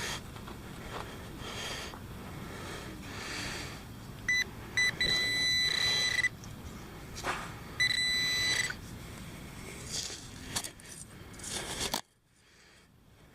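Metal detecting pinpointer giving a steady high-pitched beep as it locates a deep target in a dig hole. Two short blips come a little after four seconds in, then a tone of over a second, then another of just under a second about eight seconds in. Scrapes and rustles of digging in soil run between, and the sound cuts almost to silence near the end.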